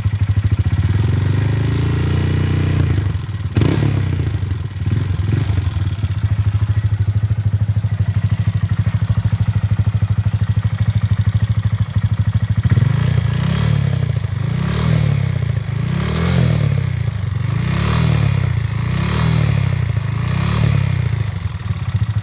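Honda Grom single-cylinder engine, bored out to 181 cc with a performance camshaft, running with a ticking clatter. It revs up and drops back once in the first few seconds, idles, then is blipped about six times in quick succession near the end. The owner finds it quieter with the valve lash set tighter than factory spec but not cured, and plans to try heavier oil.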